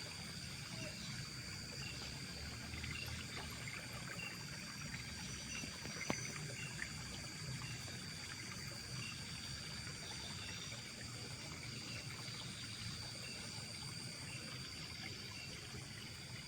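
Night outdoor ambience by shallow water: a steady high insect trill with scattered short chirps over a low trickle of water. One sharp click comes about six seconds in.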